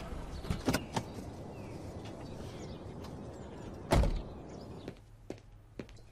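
A car door clicking open and shut with one heavy thump about four seconds in, over a steady low rumble. After the thump the rumble drops away, leaving a few light taps.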